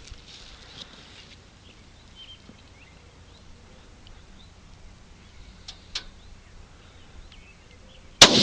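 Quiet open-air ambience with a few faint bird chirps and small clicks, then a single hunting rifle shot near the end: one sharp, loud crack whose report keeps rolling on afterwards.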